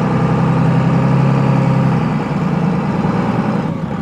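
Tow truck's engine running at low revs, heard from inside the cab, a steady low hum that eases slightly about two seconds in as the truck starts to roll out of the driveway.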